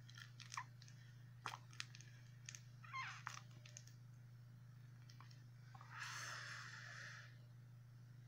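Faint clicks and small pops as a joint is lit and puffed on, then one long breathy exhale of smoke about six seconds in, over a steady low hum.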